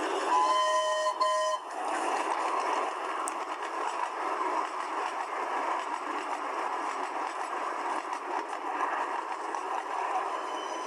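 Train horn sounding two short two-note blasts, followed by the steady running noise of a train.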